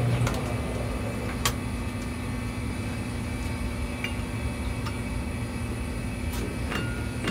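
Metal lathe turning a brass tube: its running and cutting sound stops right at the start, leaving a steady low hum. A few sharp clicks follow as the stopped chuck and workpiece are handled, one about a second and a half in and two near the end.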